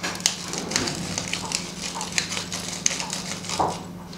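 Hand-held pepper mill grinding black peppercorns: a fast, irregular run of dry crackling clicks as the top is twisted back and forth.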